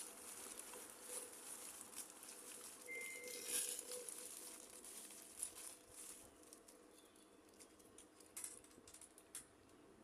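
Faint scattered clicks and small rustles of someone eating, with a brief high tone about three seconds in.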